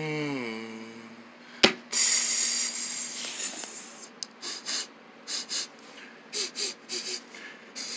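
A person's voice hums a falling note, then a sharp click and a long, loud breathy exhale that fades out, followed by scattered rustling as hands move plush toys about on carpet.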